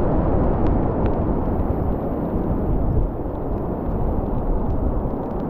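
Strong wind buffeting the microphone in a coastal storm: a dense, steady low rumble with faint ticks scattered through it.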